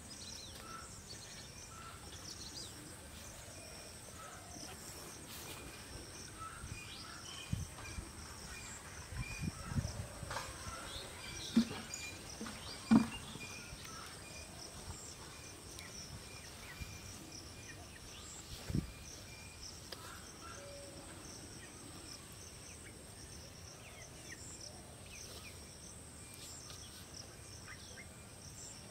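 Steady high insect drone with regular short chirps. A few dull thumps come in the middle, the loudest about halfway.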